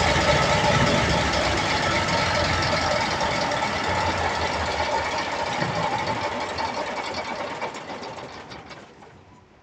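Cummins QST30 V12 diesel generator set running loud, then winding down and fading away over the last few seconds as it shuts off.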